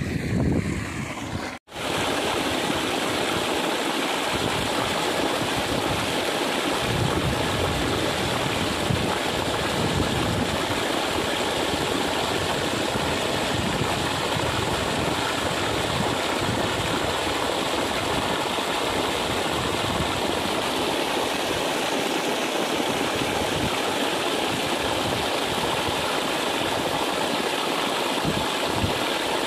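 Water gushing steadily out of a large irrigation hose and splashing onto the soil. It begins after a brief dropout about two seconds in.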